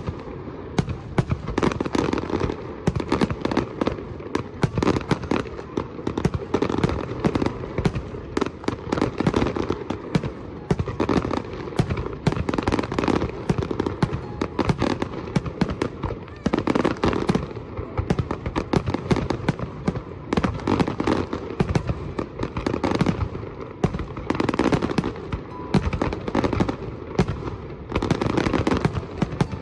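Diwali fireworks and firecrackers going off without pause: dense, rapid, overlapping cracks and pops, with louder clusters of bangs every few seconds.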